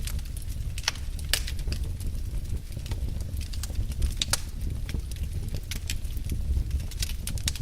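Fire crackling in a fireplace: irregular sharp pops and snaps over a low steady rumble of the flames.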